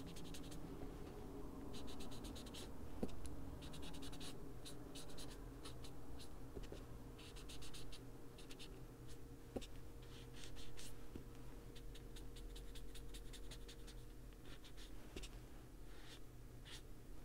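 Foam detail blending tool rubbing and dabbing Distress Ink onto a paper colouring page, in runs of short strokes, several a second, with brief pauses between runs.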